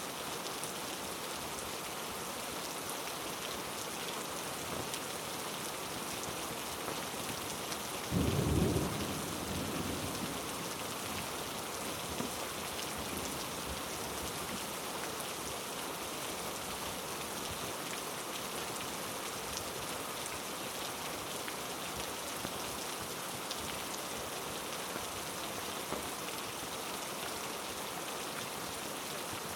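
Heavy rain falling steadily on rainforest foliage, with one short, low rumble of thunder about eight seconds in.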